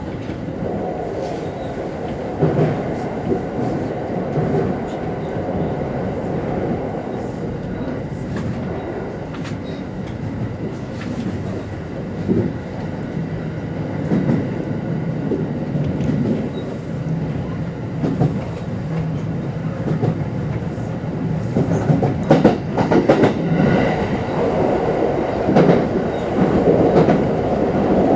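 Kintetsu Series 21 electric train heard from inside the car while running at speed: a steady rumble of wheels on rail with repeated clicks over rail joints. The clatter grows louder and busier from about 22 seconds in.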